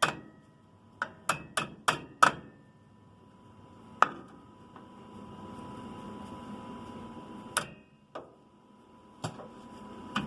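Quick metal-on-metal hammer taps, a run of five at about three a second and then single taps every few seconds, each ringing briefly, as a drum brake spring is worked over its hole on the brake shoe. A faint steady hum comes in behind from about halfway.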